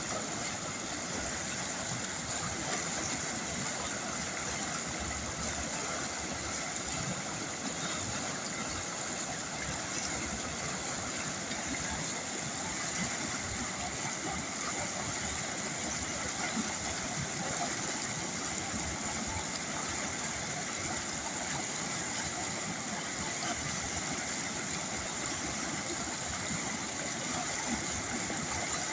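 River water flowing: a steady, even rush with no change.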